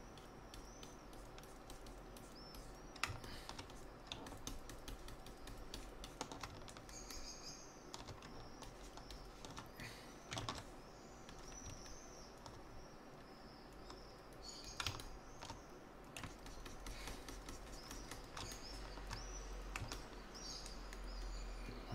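Faint, irregular clicks and taps of a computer mouse and keyboard, over a low steady hum, with a few faint high chirps now and then.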